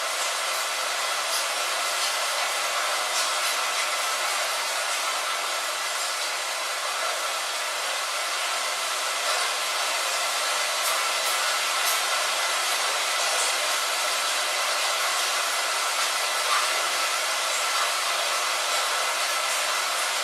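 Steady rain, an even high hiss without low rumble, with scattered small drop ticks.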